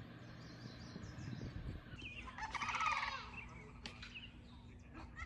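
A bird giving a rapid, rattling call lasting under a second, about two and a half seconds in, over faint background chirping.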